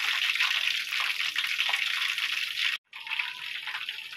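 Flour-coated chicken pieces deep-frying in hot oil in a wok, over low heat: a dense, steady sizzling crackle of oil bubbling around the meat. It cuts out for an instant partway through and comes back slightly quieter.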